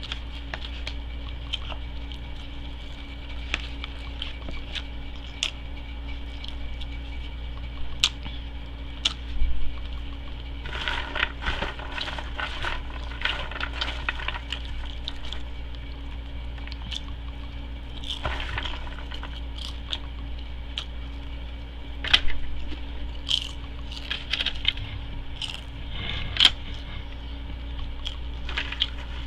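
Eating sounds: chewing and lip-smacking on a fish sandwich, with scattered clicks and a few longer crinkles of aluminium foil, over a steady low hum.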